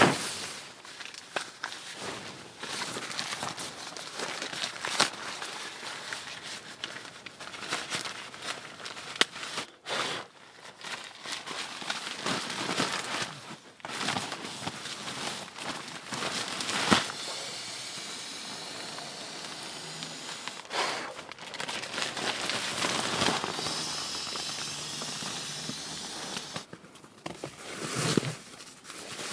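Crinkling and rustling of an inflatable sleeping pad's nylon fabric as it is unrolled and handled, with sharp crackles. In the second half a steady rush of air lasts several seconds as a pump sack is squeezed to inflate the pad.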